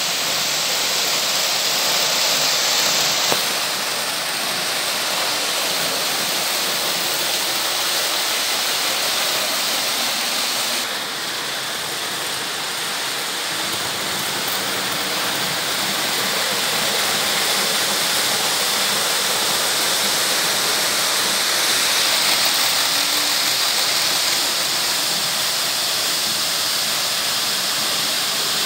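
Märklin H0 model trains rolling on hollow sheet-metal M-track: a steady rushing rumble from the wheels and the tinplate track bed, its tone shifting a few times.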